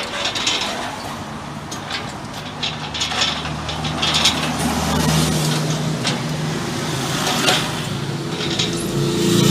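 Manual hand pallet truck pushed over asphalt, its steel wheels and forks clicking and rattling, over the steady low hum of a motor vehicle engine running, which grows louder near the end.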